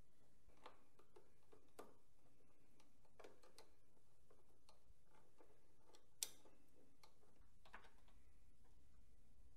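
Faint, scattered clicks and light taps, about eight in all, with one sharper click about six seconds in, over a quiet background.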